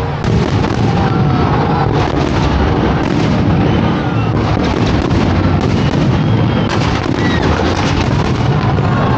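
Fireworks display going off in quick succession: many sharp bangs and crackles from bursting aerial shells over a continuous rumble.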